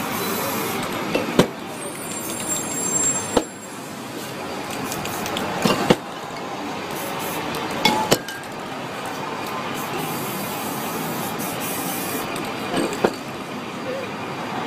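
Aerosol spray paint hissing in short bursts, with about five sharp clicks or knocks between them, over steady street traffic noise.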